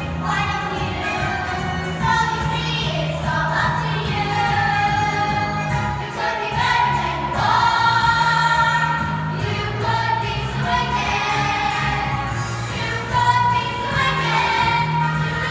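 Youth choir of children and teenagers singing together in unison and harmony over an instrumental accompaniment with sustained bass notes.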